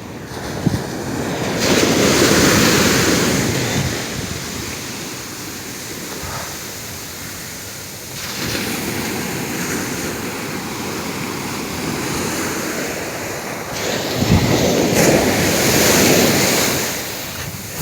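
Ocean surf: waves breaking and washing up the beach, swelling loud three times, about six seconds apart.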